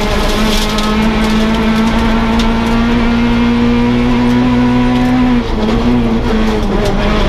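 Peugeot 208 R2 rally car's 1.6-litre four-cylinder engine, heard from inside the cabin, pulling hard in fourth gear with its pitch slowly climbing. About five seconds in there is a short break and dip in level as it changes down to third with the sequential gearbox, then it runs on steadily.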